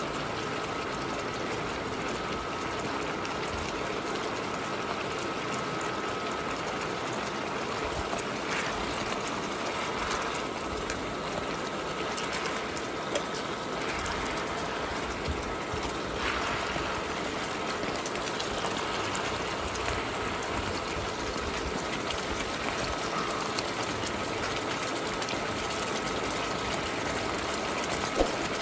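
Sauce simmering and bubbling around tuna steaks in a nonstick wok, with a thin steady whine. A spatula knocks against the pan a couple of times, about halfway through and near the end.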